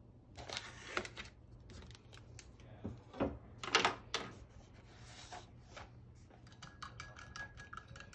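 Paintbrushes being picked out of a brush jar, their handles clicking and rubbing against each other and the jar in short scattered clatters, with a run of light clicks near the end.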